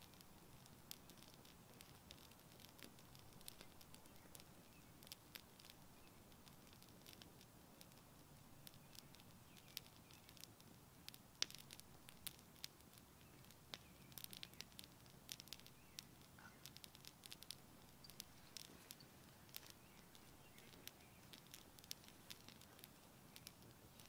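Campfire of fallen branches burning, the wood crackling with faint, irregular sharp pops over a low, steady rush of flame; the loudest pop comes about halfway through.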